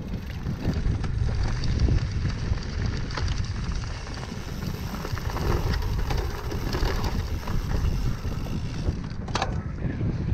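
Wind buffeting the microphone while riding a drop-bar bike, with the tyres rolling over a dirt trail and the bike rattling. A sharp knock comes about nine seconds in.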